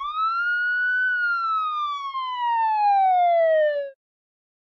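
A single whistling tone from a star sound effect: it rises quickly in pitch over about the first second, then glides slowly downward for about three seconds and cuts off abruptly.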